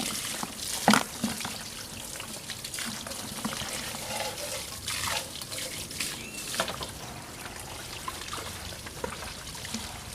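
Water trickling and splashing, with scattered knocks and clicks, the sharpest about a second in.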